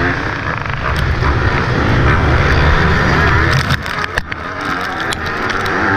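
Yamaha YZ250F four-stroke single-cylinder motocross bike engine running hard under throttle, heard close up from the onboard camera, with the pack's other bikes around it. A little past halfway the throttle eases off briefly, with a few sharp knocks, then it pulls again.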